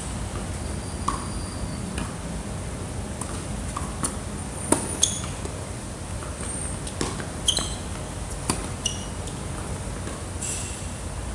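Tennis ball being struck by rackets and bouncing on a hard court during a rally: about eight sharp pops at uneven intervals, some with a short high ring, the loudest nearly five seconds in. A steady low rumble runs underneath.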